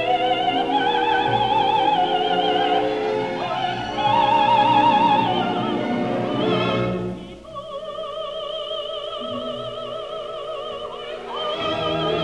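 Operatic female voice singing sustained phrases with a wide vibrato over an orchestra, from a live opera broadcast. After a brief drop about two-thirds of the way through, the voice comes back on lower notes.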